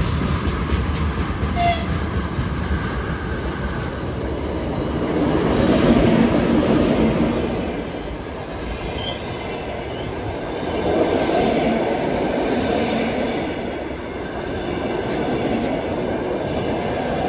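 Passenger coaches of a long-distance train rolling past along the platform, their wheels rumbling on the rails. The rumble swells and fades in waves, with a brief high squeal near the start.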